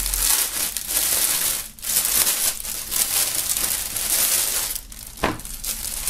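Clear plastic shrink-wrap being torn open by hand and pulled off a T-shirt: dense crinkling and crackling of the film, easing off about five seconds in, followed by a single sharp tap.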